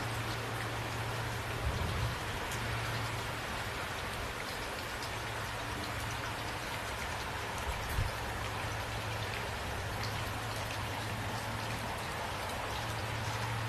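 Steady rain falling on a surface, with a low steady hum underneath and two brief low thumps, about two seconds in and about eight seconds in.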